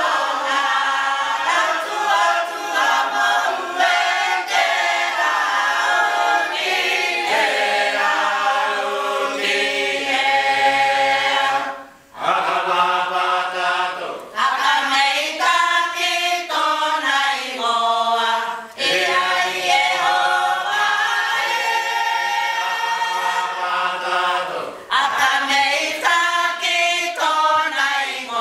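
Cook Islands imene tuki, a choir of women singing an unaccompanied hymn in several voice parts. The singing comes in long held phrases with short breaks between them, the clearest about twelve seconds in.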